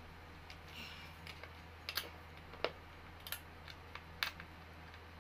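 Light, irregular clicks and taps of hard plastic and metal office chair parts being handled and fitted together during assembly, with a brief rustle early on, over a steady low hum.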